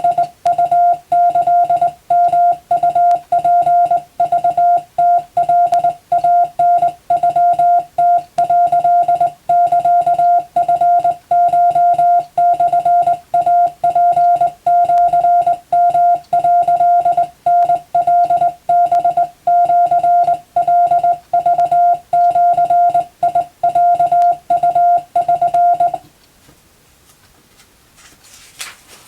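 Morse code (CW) practice tone: a single steady mid-pitched beep keyed into short dots and longer dashes, sending Japanese wabun telegram text. It stops abruptly a few seconds before the end, and a faint click follows.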